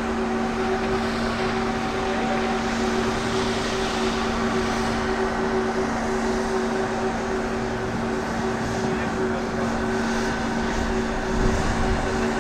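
A steady mechanical hum at one unchanging pitch over a continuous rushing noise.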